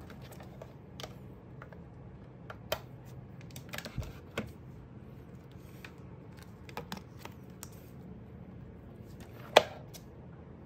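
Hands handling a plastic desk fan, a phone and USB cables: scattered light clicks and taps, with one sharp, loud click near the end.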